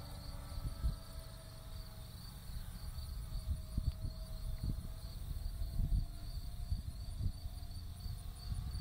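Faint, slowly shifting drone of a distant Grumman F6F Hellcat's Pratt & Whitney R-2800 radial engine as the fighter banks overhead, under gusts of low wind rumble on the microphone. An insect chirps throughout in a steady pulsing rhythm.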